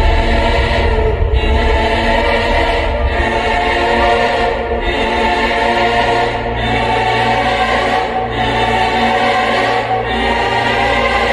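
Dramatic choral music: a choir sings held chords over deep bass, with a regular pulse about every second and a half to two seconds.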